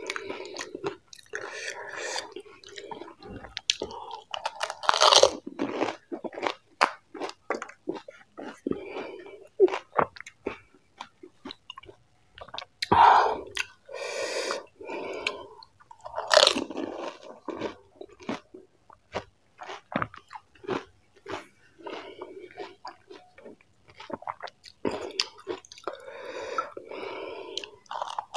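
Close-miked chewing of panipuri: crisp fried puri shells filled with spicy water crunching and crackling between the teeth, in a steady run of small clicks with several louder bursts of crunching.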